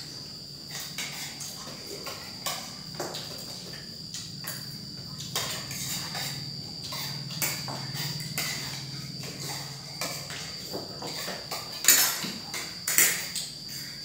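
Spoons and forks clinking and scraping on plates as several people eat, with two sharper clinks near the end. A steady, high cricket trill runs underneath.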